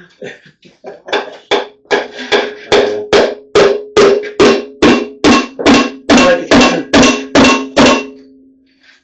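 Hammer blows on a sealant-stuck part of a Chevy 350 small-block being knocked loose during teardown: a few light taps, then about seven seconds of heavy, evenly spaced strikes, two to three a second, the metal ringing with each blow.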